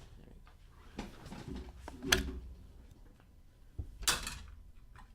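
Handling noise of trading cards and plastic penny sleeves on a table: a sharp tap about two seconds in and a brief rustle of plastic about four seconds in.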